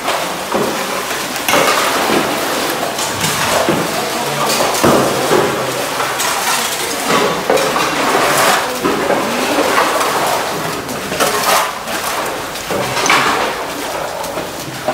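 Irregular knocking and clinking of hard objects, many sharp strokes one after another.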